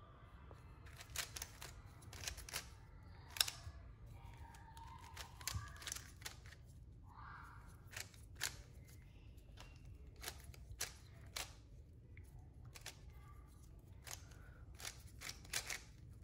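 Plastic clicks and clacks of a bandaged 3x3 puzzle cube, a QiYi Warrior S with pieces superglued together, as its layers are turned by hand during a solve. The clicks come irregularly, in short runs of two or three, some sharper than others.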